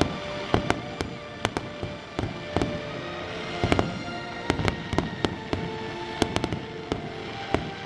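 Aerial fireworks bursting: an irregular string of sharp bangs and crackles, several a second, with music playing underneath.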